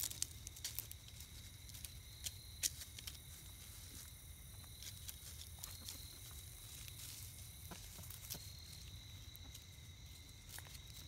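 Buff Orpington hens scratching and pecking in dry leaves and mulch: faint, scattered rustles and clicks, over a faint steady high-pitched tone.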